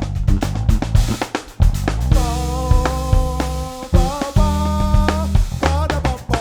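Live band playing a groove: a drum kit beat with kick and snare over a bass line, with held melody notes in the middle.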